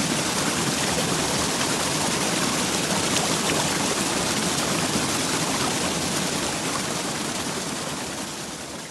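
Yellowstone River rushing water, a steady, even rush that fades out over the last few seconds.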